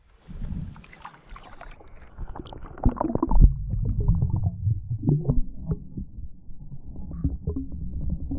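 Kayak on the river: irregular dull knocks and bumps against the hull and water movement, over a low rumble that grows stronger about three seconds in.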